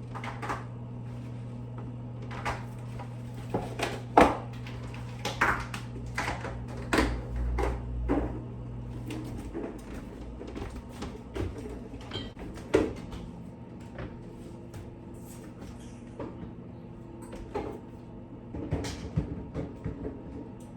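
Kitchen clatter: many knocks and clicks of cupboard or fridge doors and of items being handled and set down, over a steady low hum that stops about nine seconds in.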